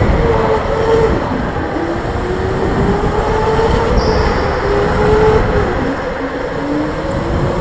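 Electric go-kart's motor whining over the low rumble of the kart rolling on a concrete track, heard from on board. The whine's pitch slides slowly down as the kart slows into a hairpin, lowest about six and a half seconds in, then climbs again as it accelerates out.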